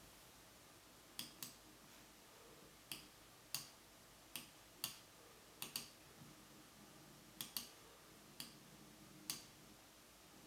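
About a dozen sharp clicks at irregular intervals, some in quick pairs a fraction of a second apart, over a quiet background.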